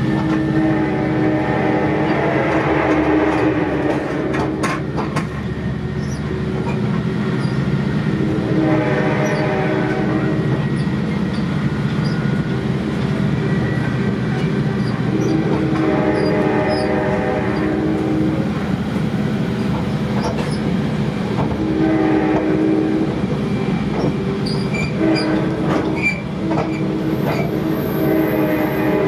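Horn of an F59PHI diesel locomotive sounding a series of long and short blasts, as sounded for grade crossings, heard from inside a passenger coach. Under it runs the steady rumble of the coach's wheels on the rails.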